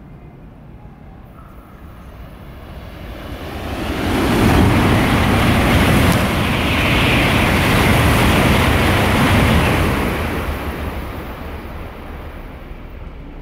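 Shinkansen bullet train running through the station at high speed without stopping: a rushing noise of air and wheels builds over a couple of seconds, stays loud for about six seconds as the cars go by, then fades away.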